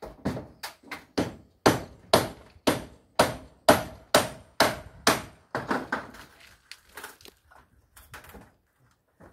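A steady run of sharp knocks, about two a second, like hammering or chopping, loudest near the middle. After about five and a half seconds they give way to lighter, scattered clicks.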